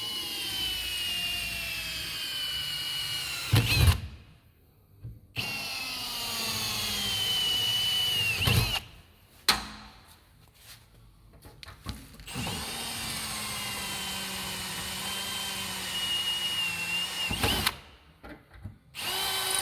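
Power drill boring rivet holes through a bracket into a vehicle's sheet-metal body panel: three runs of a few seconds each with short pauses between them, each run ending in a sharp knock.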